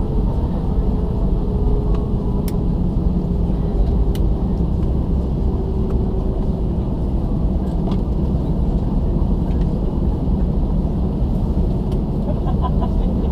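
Steady low rumble inside the cabin of an Airbus A319 jet taxiing to the gate, its engines running, with a faint steady hum through the first half.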